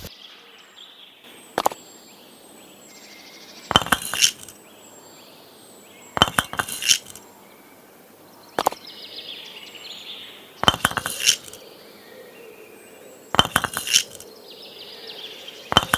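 Sharp clinks and taps of small hard objects knocking together, in short clusters every two to three seconds, with faint bird chirps in between.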